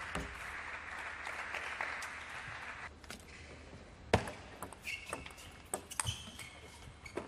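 Table tennis rally: the ball knocks sharply off the bats and the table, about two or three clicks a second, beginning about four seconds in with a loud strike, and shoes squeak briefly on the court floor. A steady hiss of hall noise fills the first three seconds.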